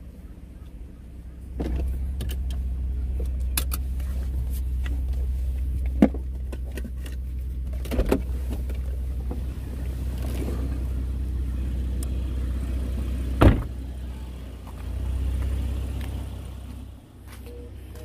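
Car running with a steady low rumble, with a few sharp clicks and knocks along the way. The rumble drops away near the end.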